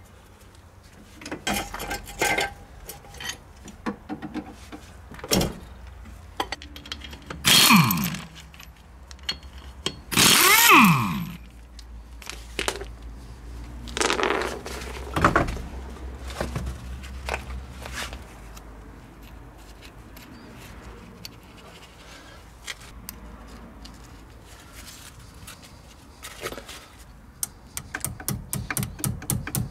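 Hand-tool work on a car's front wheel: clanks, knocks and two loud scraping sounds that slide down in pitch as the wheel is taken off. Near the end, rapid light hammer taps drive the locking pin through the hub-nut lock nut.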